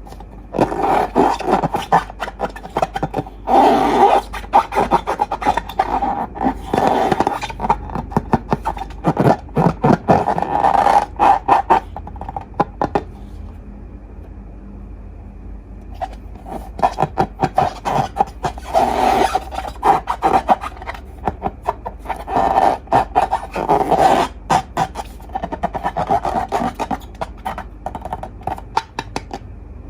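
Slime being worked, crackling and popping with dense clicks in two long stretches, broken by a pause of about three seconds midway.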